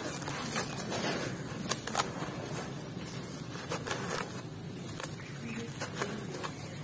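A damp chunk of sand-and-cement mix with black gravel crumbling in the hand, gritty grains and pebbles pouring back into a plastic basin with a running patter and scattered sharp crunchy clicks.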